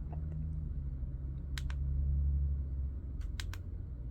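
Plastic buttons on a digital alarm clock clicking as they are pressed to change the night-light colour: two quick clicks, then three more about a second and a half later, over a low steady hum.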